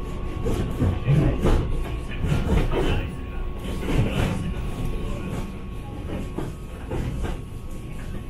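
Moving train carriage running along the track: a steady low rumble with irregular knocks and rattles.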